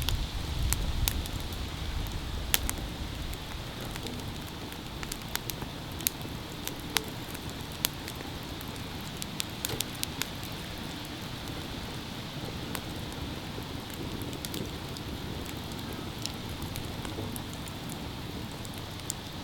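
Open wood fire crackling, with irregular sharp pops over a steady hiss.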